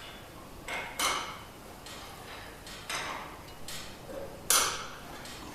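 Intermittent sharp clicks and knocks, about five of them, from hands-on disassembly work; the loudest comes about four and a half seconds in.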